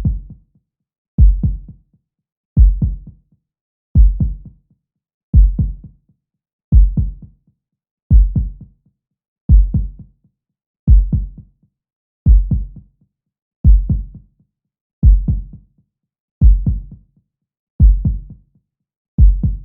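Heartbeat sound effect: slow, steady lub-dub double thumps, about one beat every second and a half, with silence between beats.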